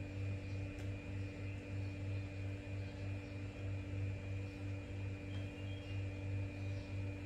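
A steady low machine hum that throbs evenly about two to three times a second, with fainter steady higher tones above it.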